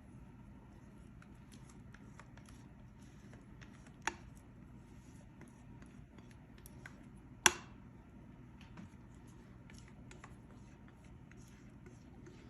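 Batter being poured and scraped into a baking pan with a utensil: faint scrapes and small clicks, with two sharp knocks, the louder one, with a brief ring, about seven and a half seconds in.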